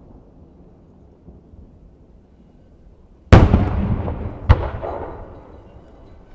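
Two aerial firework shells bursting, the first about three seconds in and the second just over a second later, each a sharp bang followed by a long echo that fades away.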